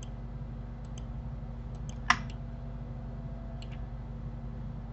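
Computer mouse clicking: a few faint clicks and one sharper click about two seconds in, over a steady low hum.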